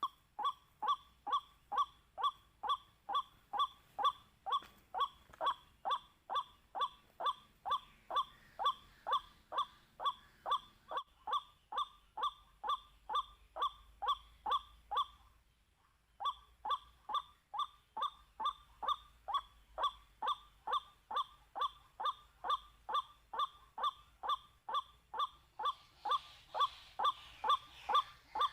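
White-breasted waterhen call, the harsh 'wak' note repeated about two and a half times a second in one long, even series, with a short break about halfway through. It is the waterhen lure call used to draw the birds to a trap.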